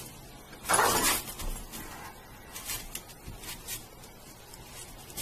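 Scuffle as a puppy is pinned down on its side: a short burst of scrabbling and rustling about a second in, then a few faint brief rustles.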